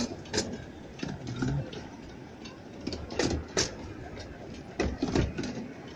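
Miniature railway carriages rolling past, their wheels clicking and knocking over the rail joints in irregular knocks, some in quick pairs, over a low rumble.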